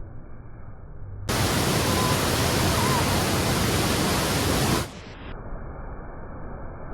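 Waterfall's falling water rushing steadily. It sounds muffled at first, turns full and bright about a second in, and goes muffled again near five seconds.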